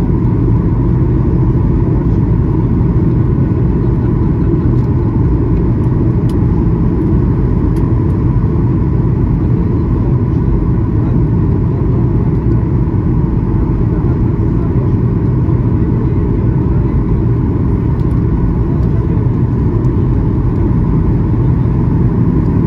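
Steady cabin noise inside a Boeing 737-800 during its descent toward landing: a loud, even low rumble of airflow and the CFM56 jet engines, with a faint steady whine above it.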